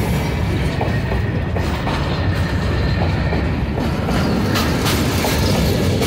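Freight train's wagons rolling past close by: a loud, steady rumble of steel wheels on rail, with the wheels clacking at irregular intervals.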